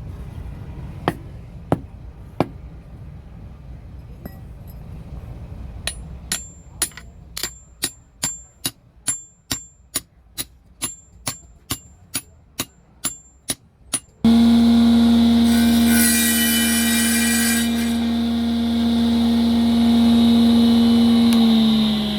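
Hammer blows on metal, a few scattered knocks and then a steady run of ringing strikes about two a second. About two-thirds of the way in, an electric workshop machine switches on suddenly, runs loudly with a steady hum, and winds down with falling pitch near the end.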